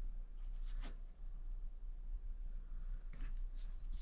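Quiet room tone with a steady low hum and a few faint rustles or light knocks, the kind of handling noise made while holding a camera or a plant pot.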